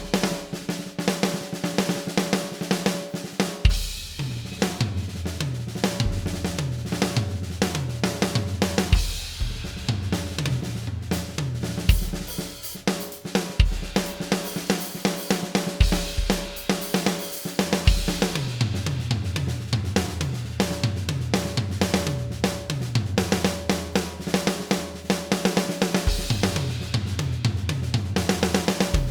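Drum kit solo: fast snare and tom fills, bass drum hits and ringing cymbals and hi-hat, played continuously.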